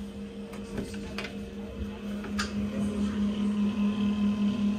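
A steady mechanical hum with a pulsing low drone that grows louder about two and a half seconds in, with a few light clicks in the first half.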